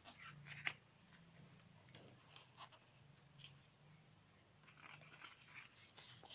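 Faint rustling and soft ticks of stiff artbook pages being handled and turned by hand, with a sharper tick under a second in and a denser run of rustling near the end, over a low steady hum.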